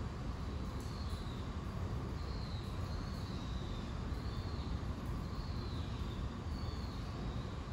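Steady background rumble with faint, short high chirps repeating every second or so.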